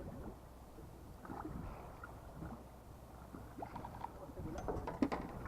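Fishing-boat ambience: a low steady hum with water slapping and small knocks on the hull, and a cluster of sharp clicks about five seconds in.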